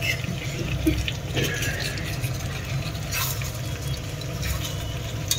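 Masala and paneer cubes bubbling and sizzling in a kadhai, with a few clinks of a slotted metal ladle against the pan as it is stirred, over a steady low rumble.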